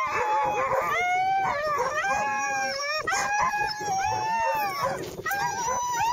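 Several harnessed sled huskies howling and yelping in overlapping, drawn-out cries that rise and fall in pitch. This is the excited clamour of sled dogs eager to start running.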